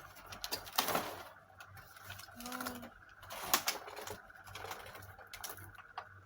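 Unboxing handling: packaging and small plastic parts being moved, with scattered clicks and rustles. A short low pitched note sounds about two and a half seconds in.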